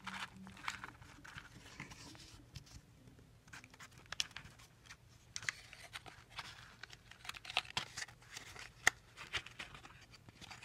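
Paper rustling and crinkling as a small brown kraft-paper coin envelope is opened and handled, with many scattered short clicks and taps.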